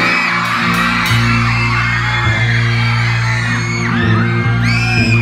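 Live band music through a PA, with sustained bass and keyboard chords and electric guitar. A crowd yells and whoops over it, loudest near the end.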